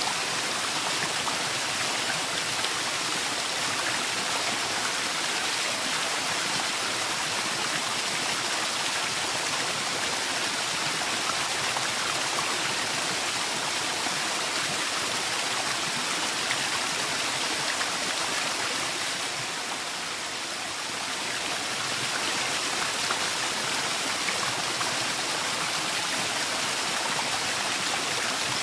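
Waterfall: a steady, even rush of falling water, briefly a little softer about twenty seconds in.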